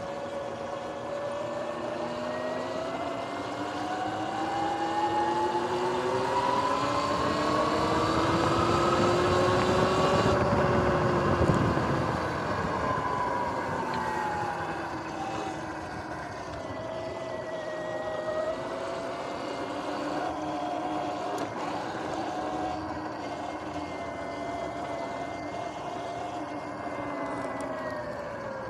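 Sur-Ron X electric dirt bike's motor and drivetrain whining while being ridden. Several tones rise in pitch over about ten seconds as it speeds up, then fall and settle to a steady cruise, with wind rush growing and fading with speed. The bike has just been tuned and cleaned.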